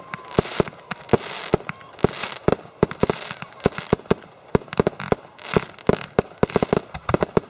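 Aerial firework shells bursting: many sharp bangs in an irregular, rapid series, coming thickest near the end.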